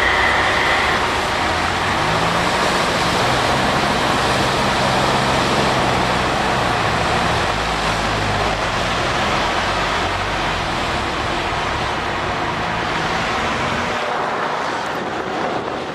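Toyota 4Runner's engine working hard through a mud hole, its pitch rising and falling, over a steady wash of splashing mud and water. It fades away about two seconds before the end.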